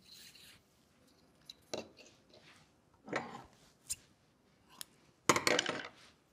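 Scissors snipping a length of sewing thread and being handled on a wooden tabletop: a few short clicks and rustles. The loudest, longest clatter comes about five seconds in.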